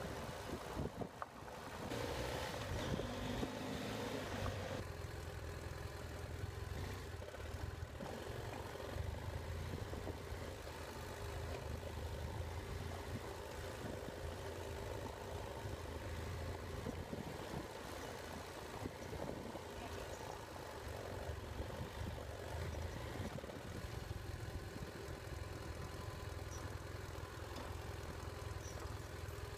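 BMW F800GS parallel-twin engine running steadily under way, with a rush of wind and track noise over it.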